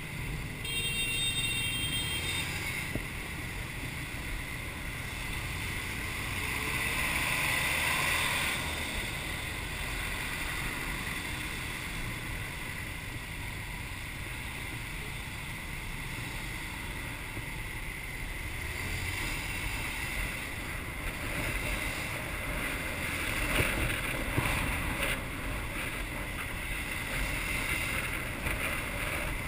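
Motorbike riding in traffic: wind buffeting the action camera's microphone over the low running of the bike's engine and the surrounding scooters and cars. There is a brief high-pitched tone about a second in.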